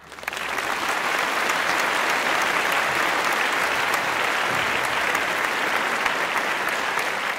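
Crowd applauding: a dense, steady clapping that builds up within the first second and then holds even, a recorded applause track.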